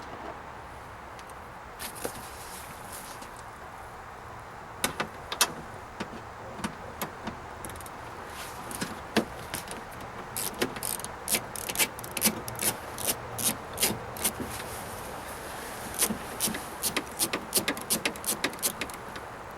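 Socket ratchet clicking in short irregular runs, with small metallic knocks, as a 10 mm bolt holding the outer door handle is worked loose inside the car door.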